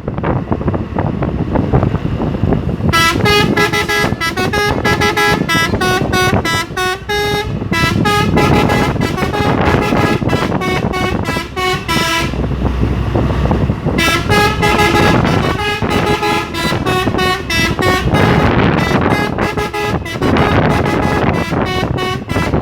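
Three-trumpet telolet horn on a Hino truck playing quick runs of short musical notes, starting about three seconds in, breaking off for about two seconds midway, then playing on almost to the end. Under it is a steady engine and road rumble.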